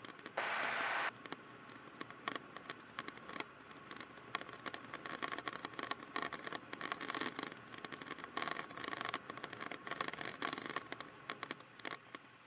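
Faint irregular crackling, rustling and clicking, as of a cockpit headset and intercom line, with a short hiss about half a second in. The crackle is thickest in the second half.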